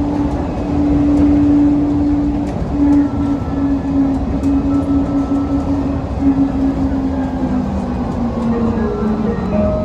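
DFW Skylink automated people-mover train running, its electric drive giving a steady whine over a low running rumble. The whine falls in pitch over the last few seconds as the train slows.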